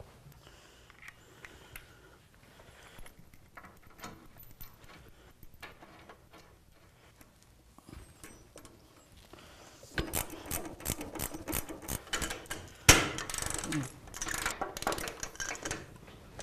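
Hand tools on a motorcycle's rear shock mounting bolts: light scattered clicks and taps, then from about ten seconds in a ratchet wrench clicking rapidly as the bolts are tightened, with one sharp metallic knock a few seconds later.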